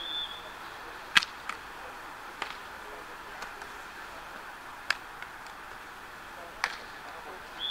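Beach volleyball rally: about half a dozen sharp slaps of hands hitting the ball, the loudest about a second in, over a low murmur of voices. A short referee's whistle sounds at the very start.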